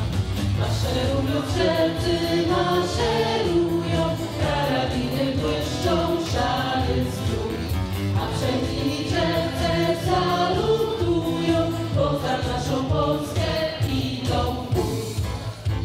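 A choir of voices singing a song together, with instrumental accompaniment.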